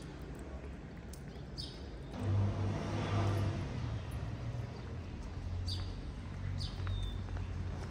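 A motor vehicle passing on the street: its engine hum swells about two seconds in, then settles into a steady low hum. Short high bird chirps sound a few times.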